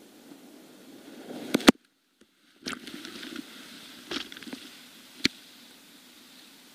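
Rushing whitewater heard from the kayak, with several sharp knocks and splashes as the kayak and paddle hit the rapid. The sound cuts out completely for about a second after the first loud knock, then the water noise returns.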